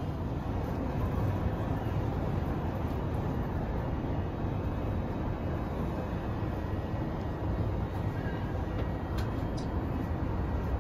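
Steady rumbling ride noise inside a moving cable car gondola as it runs along its cable, with a couple of faint ticks near the end.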